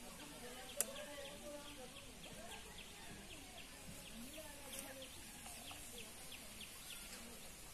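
Faint outdoor ambience: a small bird chirping over and over, about three short high chirps a second, with low wavering background calls. A single sharp click about a second in.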